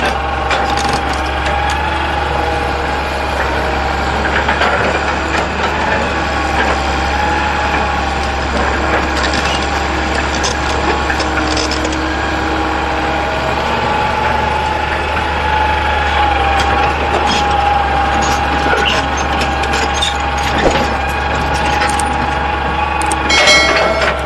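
Heavy machinery running steadily, with a wavering high whine over a low drone and scattered knocks and cracks, more of them near the end.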